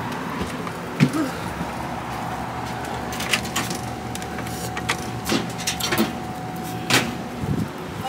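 A steady hum and hiss with a faint steady tone, broken by a few scattered clicks and knocks.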